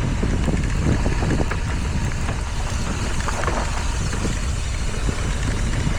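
Mountain bike descending a dirt trail: steady wind buffeting the microphone over the rumble of knobby tyres, with short rattles and knocks from the bike over rough ground.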